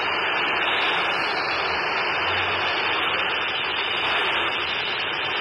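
Quansheng UV-K5 handheld radio's speaker giving out steady static hiss while receiving a satellite downlink at 260.430 MHz with its audio band narrowed: the signal is poor and only noise comes through.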